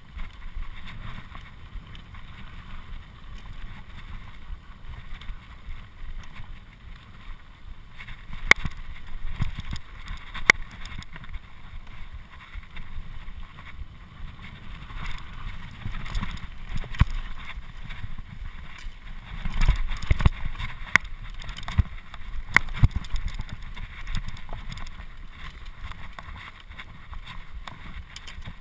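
Mountain bike rolling fast over a dirt singletrack trail: a steady rumble of tyres and wind buffeting the microphone, with sharp knocks and rattles of the bike over bumps several times, clustered in the middle stretch.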